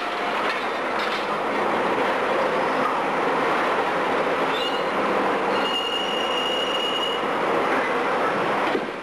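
Menck M152 cable-operated crawler excavator working at demolition: a steady, dense mechanical rattle and rumble, with a high metallic squeal for about a second and a half just past the middle.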